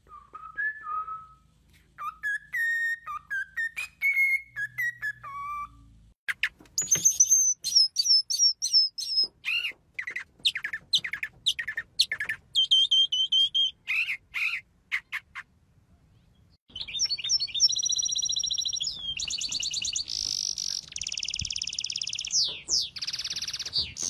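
Three birds in turn. First a cockatiel whistles a short tune in clear, rising and falling phrases. After a brief gap a mockingbird sings varied, repeated calls, and from about two-thirds of the way in a small finch-like songbird gives fast, high twittering trills.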